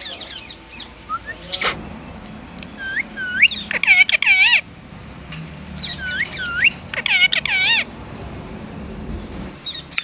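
Rose-ringed parakeet (Indian ringneck) calling: short, upward-hooked squawks in two quick runs of five or six, about three seconds in and again about six seconds in. A single sharp click comes shortly before the first run.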